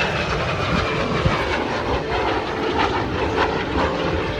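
MiG-17F jet fighter's VK-1F turbojet passing by: a loud, steady rushing noise with a high whine that falls in pitch over the first second or so as the jet goes past.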